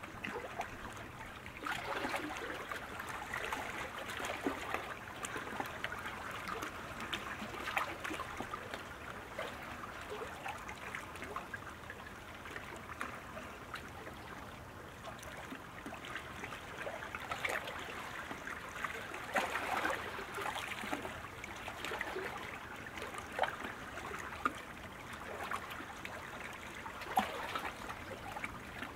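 Steady watery rushing with many small scattered splashes, from sprint kayak paddles striking the water during a hard race pace.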